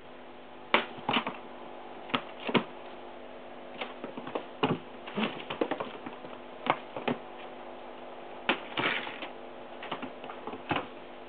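Irregular taps, thumps and quick scrabbles of a Munchkin kitten's paws landing and skidding on a woven floor mat as it pounces after a toy, some in quick clusters of two or three, the loudest about a second in and near the middle.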